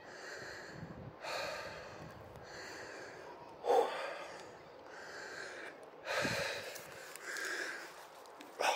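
A person breathing hard, out of breath from walking up a steep hillside path, with a breath about every second. The breaths are sharper and louder about four seconds in, about six seconds in and near the end.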